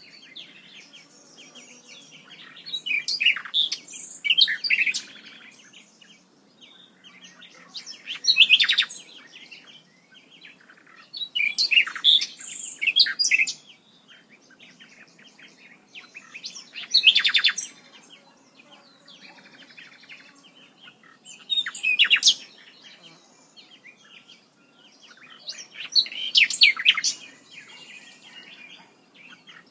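A songbird singing loud, complex phrases of rapid high notes, repeated about every four to five seconds.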